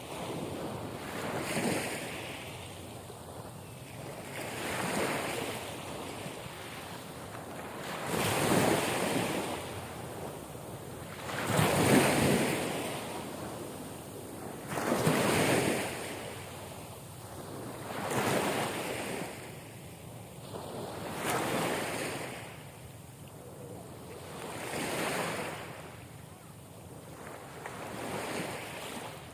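Ocean waves breaking and washing in, a rushing surge that swells and fades about every three to four seconds, the loudest few near the middle.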